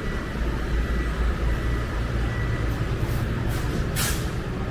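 Steady low rumble of street traffic, with three short hisses of air about three to four seconds in, the last the loudest.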